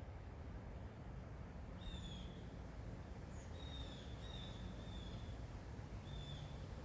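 A bird giving a run of short, high, slightly falling calls, about six of them from about two seconds in, several close together in the middle, over a steady low background rumble.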